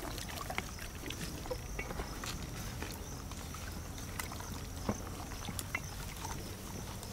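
Faint wet squelches and small clicks of hands handling and rubbing turmeric-and-salt paste into whole raw chickens over a steel plate, over a steady low hum.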